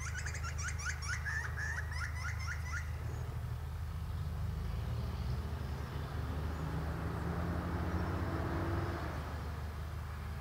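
A bird giving a quick run of about a dozen clear, rhythmic chirps over the first three seconds, over a steady low rumble of traffic; a vehicle's engine drone swells and fades past later on.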